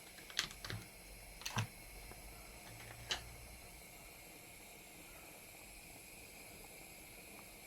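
A few light clicks and taps, four of them in the first three seconds, over a faint steady room hum: spice jars and a spoon being handled as spices are measured into the pot.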